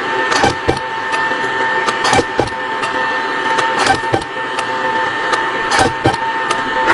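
Soldering machine running with a steady high whine, its mechanism giving a pair of sharp clicks about every two seconds as it cycles.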